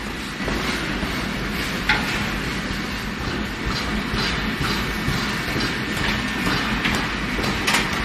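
Hot forged steel balls clattering down a steel chute, with irregular sharp metallic clanks over the steady rumble of a belt-driven rotating drum. The clanks are loudest about two seconds in and near the end.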